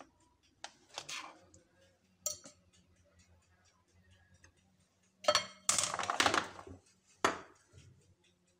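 A spoon and a plastic slotted skimmer clink and scrape against a ceramic bowl as jam-coated cookies are pushed off the skimmer. The loudest clattering comes in a cluster past the middle. A faint, steady ticking runs underneath.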